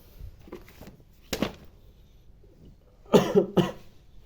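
A person coughing: a short cough about a second in, then two quick coughs near the end.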